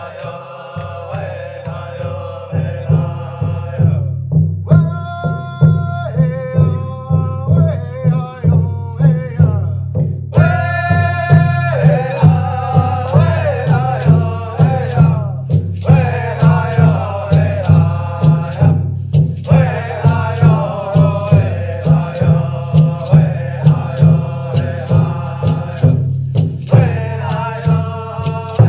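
Chanted singing over a steady drum beat, sung in phrases with short breaks between them.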